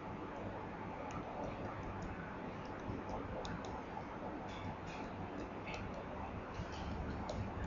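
Tablet PC stylus tapping and scratching on the screen while handwriting, heard as irregular light clicks over a steady low room hum.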